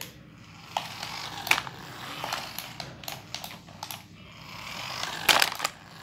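Toy remote-control car driving on a tiled floor, its small electric motor and plastic wheels whirring and rattling, louder as it comes close. A loud knock near the end as it runs into something.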